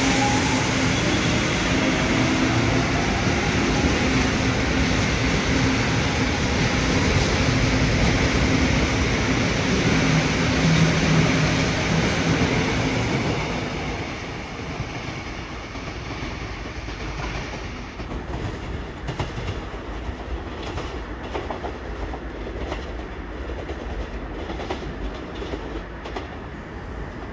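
Seoul Line 1 electric commuter train pulling out and accelerating away: motor hum and wheels running on the rails, loud for about the first thirteen seconds and then fading as the train recedes.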